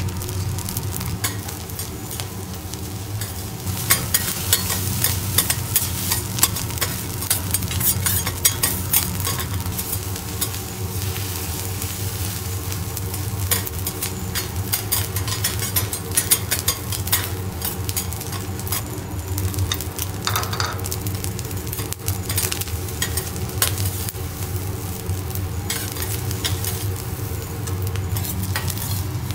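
Fried rice sizzling on a hot steel teppanyaki griddle while metal spatulas chop, scrape and tap against the plate, making a fast run of sharp clicks from a few seconds in that thins out later. A steady low hum sits underneath.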